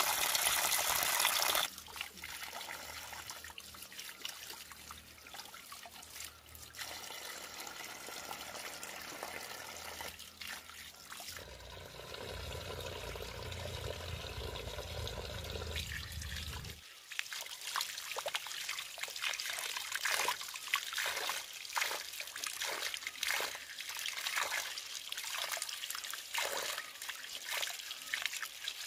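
Water trickling and splashing from a bamboo spout as mussels and then a bunch of green onions are rinsed in the stream. The flow is loudest in the first second or two and quieter through the middle, where a low steady hum sounds for several seconds. Irregular splashes run through the last part.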